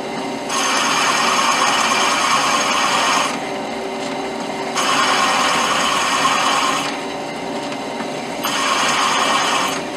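Bench drill press running steadily while a number 6 drill bit cuts into a small metal part, with a little chatter. The cutting noise grows louder three times, from about half a second to three seconds in, again from about five to seven seconds, and once more near the end, as the hole is drilled to tapping depth.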